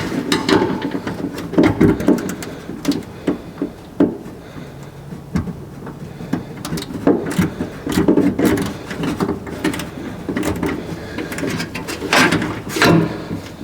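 Hand tools and hands working inside a steel car door as door-mirror mounting bolts are tightened: irregular clicks, knocks and scraping.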